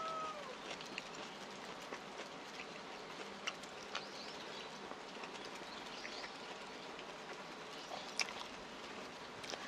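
Faint eating sounds: chewing a mouthful of bibimbap, with scattered light clicks of chopsticks, and a sharper clink about eight seconds in as a spoon goes into the soup bowl.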